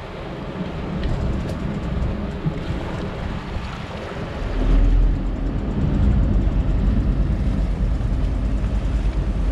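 A motor boat's engines running, with the rumble deepening and growing louder about four and a half seconds in as the throttle opens and the propellers churn white water at the stern.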